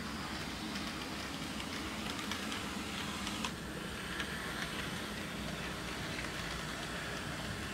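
HO scale model freight train running on sectional track: a steady rolling hum of the locomotive's motor and wheels, with a few faint clicks from the wheels over the rail joints.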